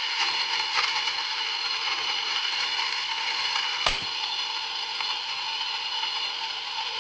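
CAFOVO 03 electric coffee grinder's 100-watt DC motor running at about 160 rpm, grinding coffee beans: a steady whine with grinding noise and a sharp crack about four seconds in.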